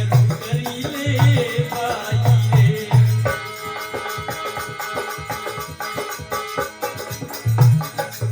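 Instrumental passage of a live Marwari folk bhajan: a hand drum beating, rattling hand percussion and a sustained melodic line. The drum drops out about three seconds in and comes back near the end.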